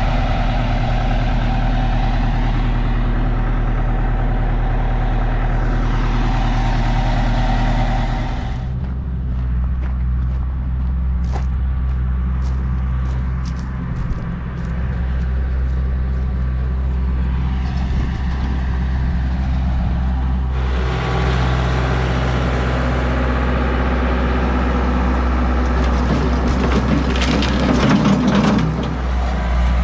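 Heavy equipment, a skid-steer loader and a dump truck, with engines running steadily and a constant low hum. About halfway through comes a run of sharp clicks and clanks. Near the end a bucketload of soil and sod tips into a steel dump-truck bed with a loud rattle.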